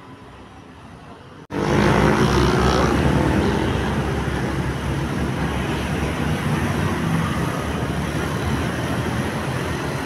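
Loud vehicle noise, a rushing engine sound with a low hum, that starts abruptly about a second and a half in after a quiet stretch, then eases slightly.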